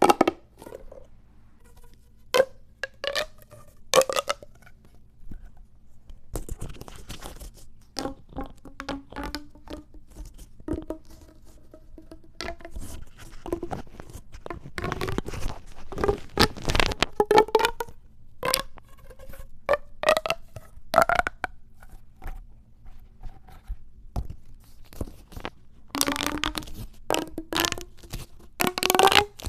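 Plastic pop tube fidget toys being stretched and squashed: bursts of crackling clicks as the ribbed sections snap open and shut. Some fast runs of clicks blend into a buzzy tone that rises in pitch.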